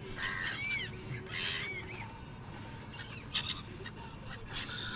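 Gulls calling: several short calls in the first two seconds, each rising and falling in pitch, and a brief sharp knock a little past three seconds.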